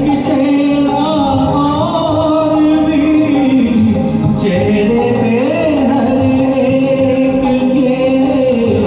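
Instrumental interlude of a Hindi film song's karaoke backing track: a held melody line that slides up and down over a full accompaniment.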